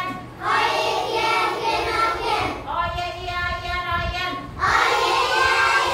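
A class of young children chanting together in unison in a sing-song way, in three long drawn-out phrases.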